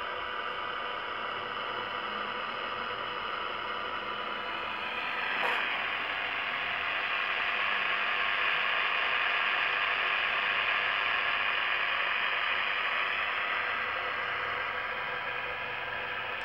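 Realistic Navaho TRC-431 CB radio giving a steady buzz with hiss through its speaker, the fault that appears after the mic is released once the set has been on a long time; the owner suspects old capacitors. A click comes about five seconds in, and the buzz then grows louder for several seconds.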